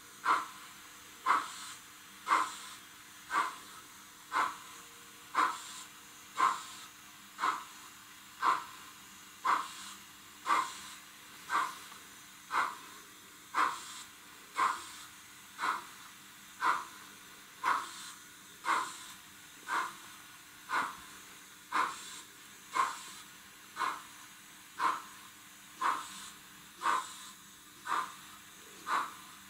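Sound-equipped H0 model steam locomotive playing steam exhaust chuffs through its small speaker: short hissing chuffs about once a second at a slow, even pace, over a faint steady hum.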